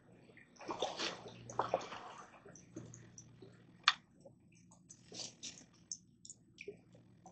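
Water splashing and sloshing in uneven bursts, likely a just-caught channel catfish being handled at the water. One sharp click comes about four seconds in.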